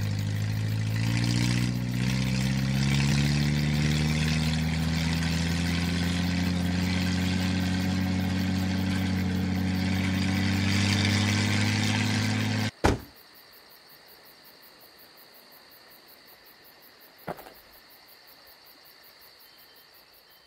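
Car engine sound effect for the park Jeep, running steadily with its pitch slowly creeping up as it drives, then stopping abruptly with a sharp knock about two-thirds of the way through. A faint steady chirring of insects follows, with a single click.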